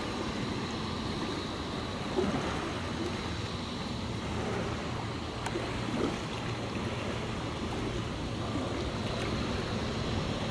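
Steady outdoor wind-and-water noise at a harbour shore, with a low steady hum underneath.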